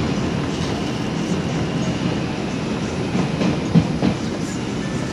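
An R142 subway train running at speed through the tunnel, heard from inside the car: a steady rumble of wheels on rail with scattered clicks, and a sharp knock a little under four seconds in.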